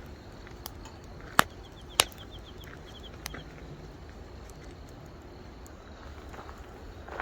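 Two sharp knocks about half a second apart, a fainter one shortly after, and another near the end, with a short rapid high chirping trill between them, over steady outdoor background noise.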